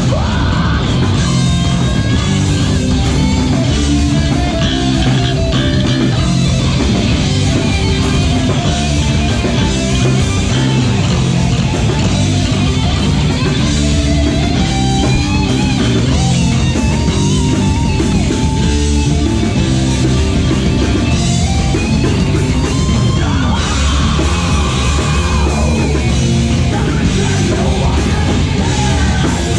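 Metalcore band playing live, loud and dense: distorted electric guitars, bass guitar and drum kit.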